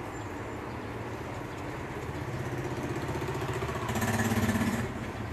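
An engine running steadily with a low hum. It grows louder toward a peak about four seconds in, then drops back.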